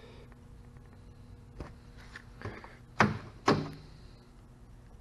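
A few knocks and taps from handling around a car's open door: two light taps, then two louder knocks about half a second apart past the middle, each with a short dull tail.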